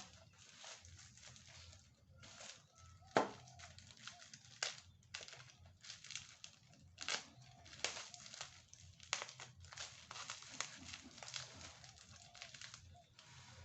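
Packaging being opened by hand: irregular crinkling and rustling with sharp tearing rips, the loudest rip about three seconds in.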